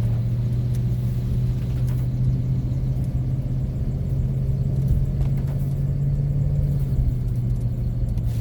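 Ford van's engine and road noise heard from inside the cabin while driving at highway speed: a steady low drone that rises a little in pitch and drops back near the end.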